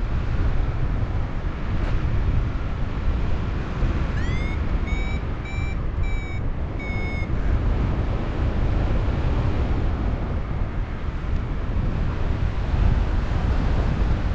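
Heavy wind noise from airflow on the microphone in flight. About four seconds in, a paragliding variometer sounds a run of short high beeps, its tone gliding up at first and then holding, for about three seconds: the climb signal of rising air.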